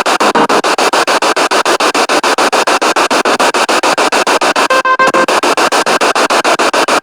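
Spirit box radio sweeping rapidly through stations: loud static chopped into about ten pulses a second, with a brief steady tone from a broadcast fragment about five seconds in.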